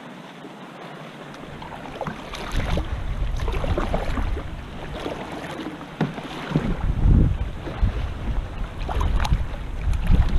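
Wind buffeting the microphone over choppy river water splashing against a kayak, with gusts getting heavier about a second and a half in and again past the middle.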